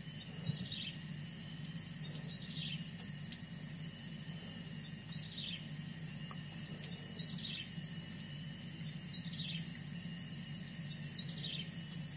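A bird calls a short falling note about every two seconds, six times, over a steady low hum.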